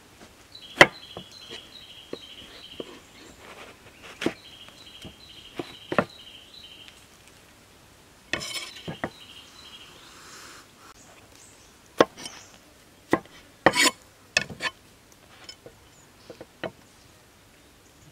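Large kitchen knife cutting an eggplant on a wooden chopping block: scattered sharp knocks as the blade strikes the board, loudest about a second in, with a cluster of quicker knocks about two thirds of the way through. A pulsing insect chirr runs under the first half.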